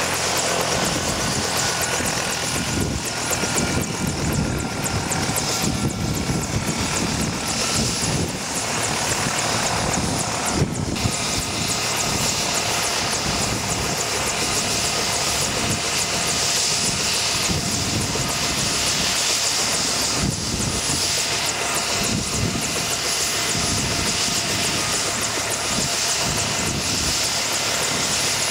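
Bell UH-1H Huey helicopter running steadily on the ground, its Lycoming T53 turboshaft whining over the rapid beat of the two-bladed main rotor.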